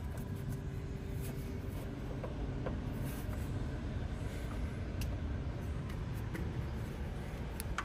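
1979 Land Rover 109 Series III Santana's engine idling, a steady low rumble, with a few faint clicks.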